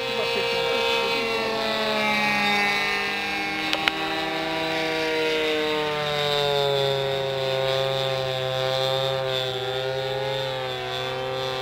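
31cc Ryobi two-stroke gas engine with a 16x8 three-blade prop on a large R/C model plane in flight, a buzzing drone whose pitch slowly sags and rises as the plane flies around. Two short sharp clicks about four seconds in.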